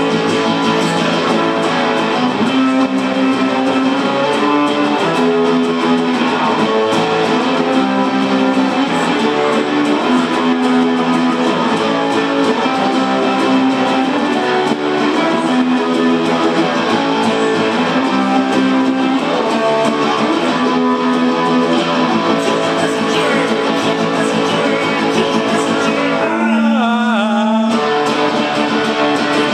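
Acoustic guitar, amplified, strummed in a repeating chord pattern with the chords changing every second or so, an instrumental passage with no singing. Near the end the pitch briefly wavers.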